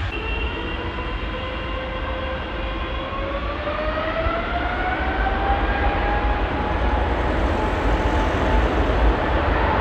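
Twin-engine widebody jet airliner's engines spooling up for take-off: a whine that rises in pitch over a few seconds and then holds steady, over a continuous low rumble.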